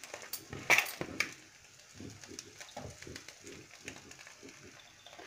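Chicken curry gravy being poured and scraped from a plastic bowl onto rice in a pan: a couple of sharp clacks about a second in, then a run of soft low thuds as the gravy drops onto the rice.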